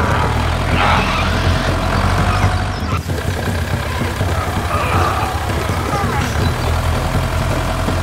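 Tractor engine sound running steadily, with brief voice-like sounds over it about a second in and again near five seconds in.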